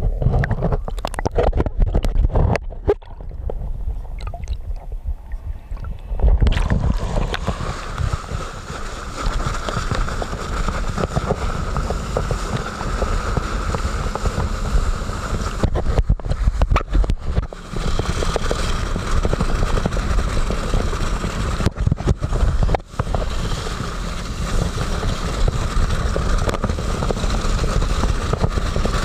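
Knocking and rubbing on the camera for about the first six seconds, then a steady rush of water and spray against a wakeboard towed behind a boat, heard from a camera mounted on the board.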